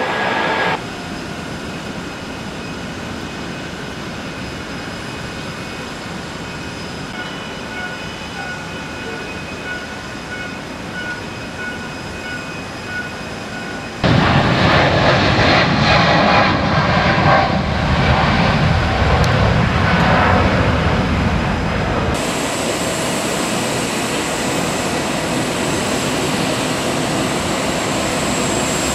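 Steady jet airliner noise at an airport, first muffled as heard from inside an airliner's cabin, then suddenly louder out on the apron about halfway through. In the last part a steady high-pitched jet whine runs over the rumble.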